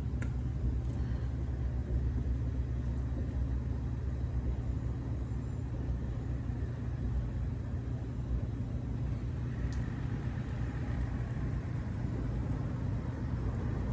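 Steady low outdoor rumble with no distinct events; a faint higher hiss joins about two-thirds of the way in.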